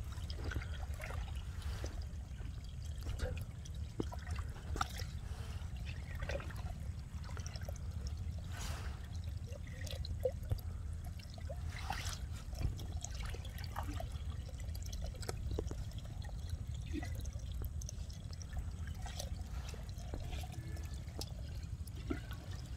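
Shallow water trickling and splashing, with scattered small splashes and knocks over a steady low rumble.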